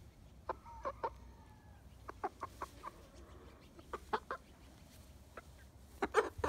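A hen clucking in short, separate clucks that come a few at a time, with the loudest pair near the end.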